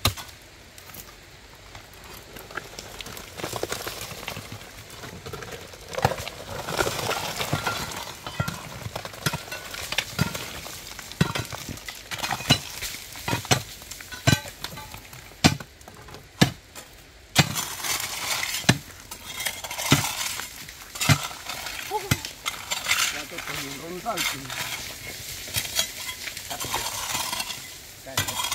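Irregular sharp knocks and clinks, several close together in places, over a steady hiss.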